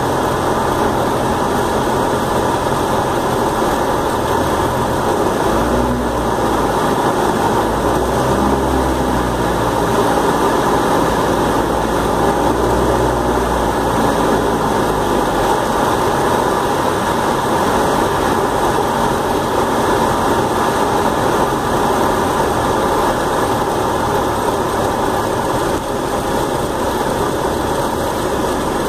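Cessna 172's piston engine and propeller running steadily on final approach, heard inside the cabin. A deeper rumble swells for several seconds in the middle.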